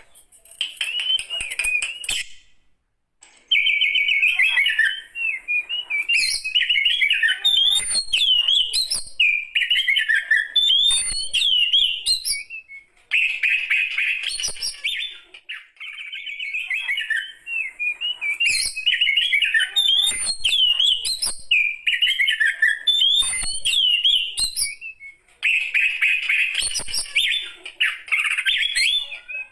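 A mature oriental magpie-robin (kacer) singing a long, varied song in phrases of quick, sweeping whistled and warbled notes, with short pauses between phrases.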